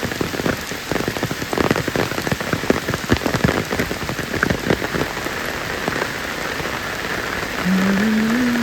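Heavy rain pouring down, a dense steady hiss with many sharp drop impacts close by. Near the end a low wavering tone joins.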